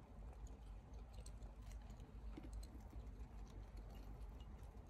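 Faint, scattered light clicks and taps from feeding tongs holding a feeder insect at the tarantula enclosure, over a low steady hum.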